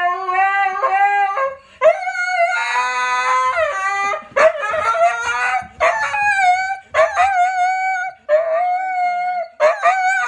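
A husky howling: a string of long howls that waver and slide in pitch, broken by short gaps every second or two.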